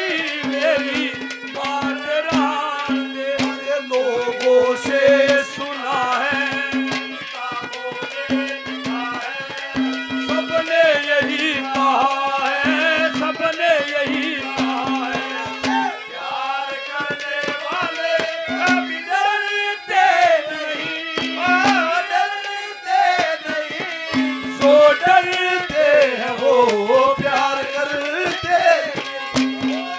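Live Haryanvi ragni folk music played without words: tabla-style hand drumming under a gliding melody line, with a steady low held note that drops out and comes back several times.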